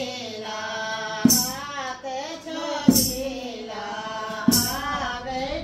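Singing of a Kumaoni mangal geet, a traditional auspicious song, with a jingling beat struck about every second and a half.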